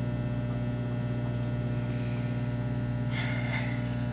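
Emerson microwave oven running with a steady electrical hum while cooking pizza rolls, with a brief crackling hiss about three seconds in.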